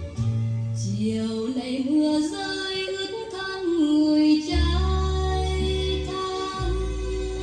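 Music: a sustained melody line that rises in steps and then holds, over a backing track with a deep bass that drops in and out.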